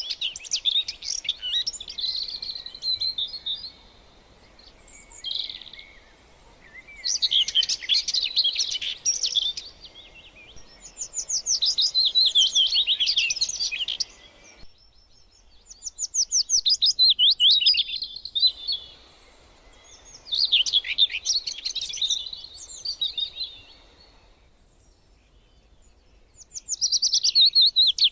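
A songbird singing: phrases of rapid, high chirps and trills, each two to three seconds long, repeated every few seconds with short pauses between.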